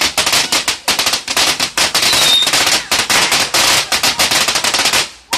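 Ground firework going off: a dense, rapid crackle of many small pops, like a string of firecrackers, stopping suddenly about five seconds in.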